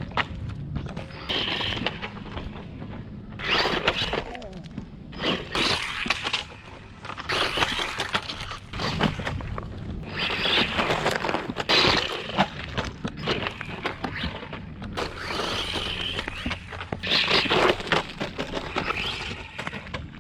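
Small 1/16-scale brushless RC monster truck running over rough rock: its tyres and plastic chassis scrabble, clatter and crash in repeated irregular bursts.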